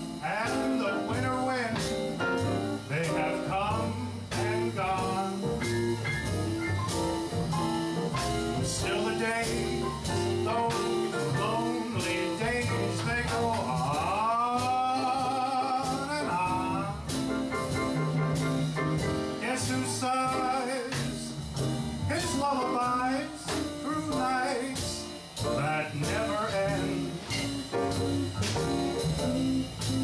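Small live band of electric guitar and drums playing an instrumental break in a slow swing ballad, with sliding notes about halfway through.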